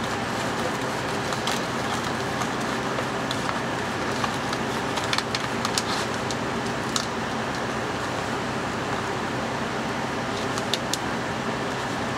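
A steady machine hum, with light clicks and crackles from hands pressing a raw chicken breast into shredded Parmesan breading in a plastic bowl. The clicks cluster about five to seven seconds in and again near eleven seconds.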